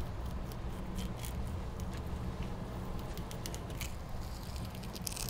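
Flexible fillet knife slicing down a kingfish along the backbone, the blade crackling with scattered small ticks as it cuts through the small bones, over a low steady rumble.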